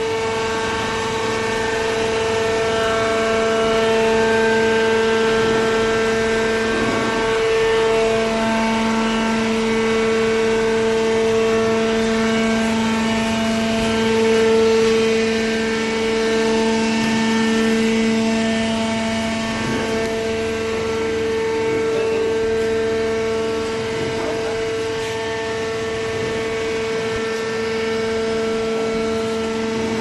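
Hydraulic power unit of a waste-paper baler running: a steady mechanical whine with a lower hum that strengthens about eight seconds in.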